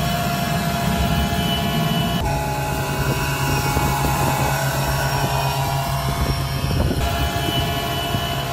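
Handheld leaf blower running steadily at full throttle, a droning fan whine that pushes a small wheeled cart along.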